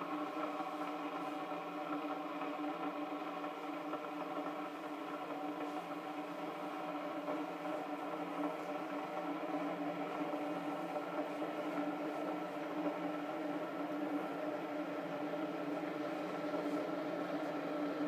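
Philips Senseo coffee maker humming steadily while it heats its water before brewing, with no coffee yet running into the glass.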